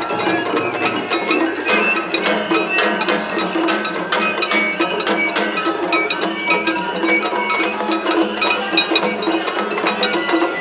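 Japanese festival hayashi music: a shinobue bamboo flute plays a high melody over a fast, steady clanging of a hand-held metal gong and drum beats.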